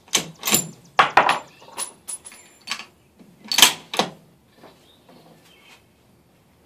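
Bolt of a Weatherby Vanguard .257 Weatherby Magnum bolt-action rifle being worked by hand, metal on metal. A quick run of clicks and clacks with a brief metallic ring comes in the first couple of seconds, and two louder clacks follow about three and a half to four seconds in.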